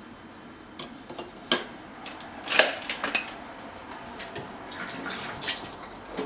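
Metal measuring spoon clinking and scraping against a measuring cup as an ingredient is added to the sugar: a few sharp knocks, the loudest about two and a half seconds in, then lighter ticks.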